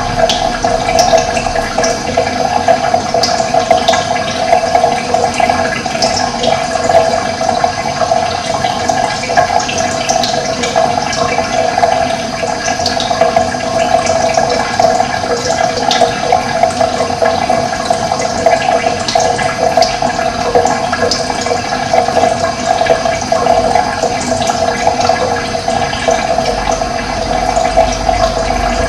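Running water, a steady rushing flow of a stream.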